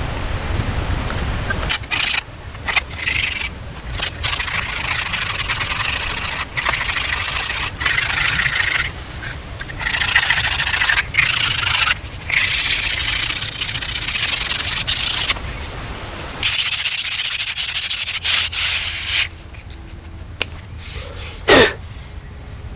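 Hand rubbing or sanding strokes in uneven stretches of a second or two, broken by sudden cuts, with a short louder sound near the end.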